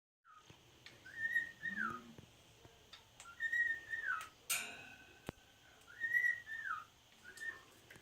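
Cockatiel whistling the same short phrase three times, about every two and a half seconds, each a held note that slides down at the end, with a shorter whistle near the end. A brief scratchy noise comes about halfway through.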